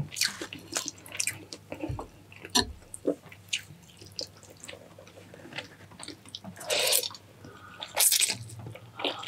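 Close-miked eating of La Paz batchoy noodle soup: wet chewing and lip smacks, with two longer slurps of broth, one about two-thirds of the way through and one near the end.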